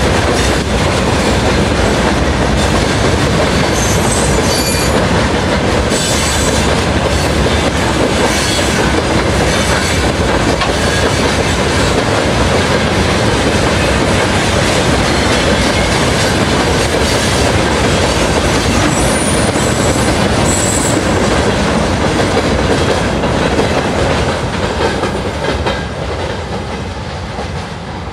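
Freight train of open gondola wagons rolling past at close range, loud and steady, with short high wheel squeals a few times. The level drops near the end.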